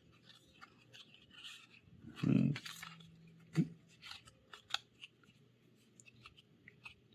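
Trading cards being handled and sorted through: scattered light clicks and rustles of card stock, with a louder rustle about two seconds in and a sharp click a little later.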